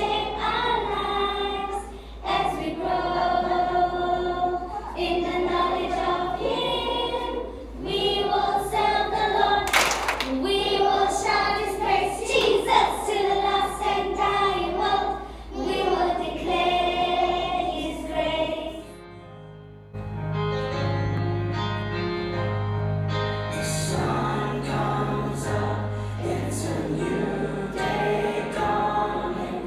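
A group of young voices singing together, recorded with a steady low hum underneath. About two-thirds of the way through the singing drops away briefly and gives way to music with a stepping bass line.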